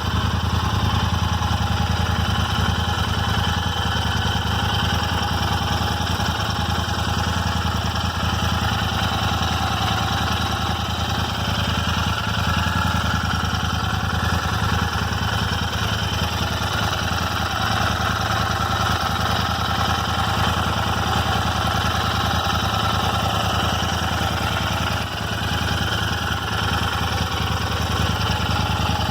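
Royal Enfield Interceptor 650's parallel-twin engine idling steadily, with the random ticking noise from the engine that the owner takes for a quality-control fault.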